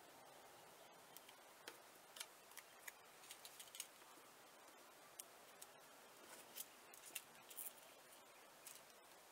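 Faint, scattered rustles and light taps of paper embellishments being handled and laid on a paper treat bag.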